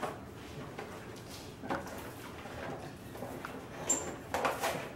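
Plastic blister packaging crinkling and rustling as a toy is pulled open by hand, with louder crackles near the end.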